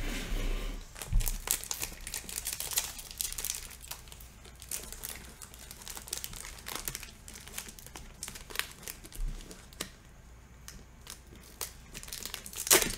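Foil wrapper of a trading card pack crinkling and tearing as it is worked open by hand: many short, irregular crackles, thinning out for a moment about ten seconds in.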